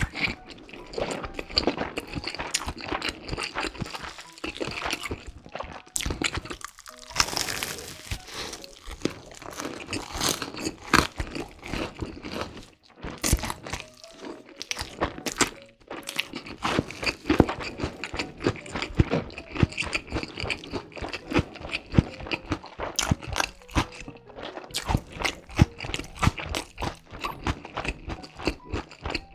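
Close-miked crunching and chewing of a crispy Flamin' Hot Cheetos-crusted pork cutlet, in quick irregular crunches with a few short pauses between bites.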